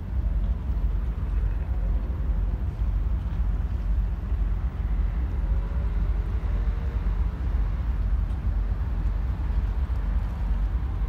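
Steady low rumble of road traffic, trucks and cars, passing on a road bridge, with faint rising and falling tones about halfway through.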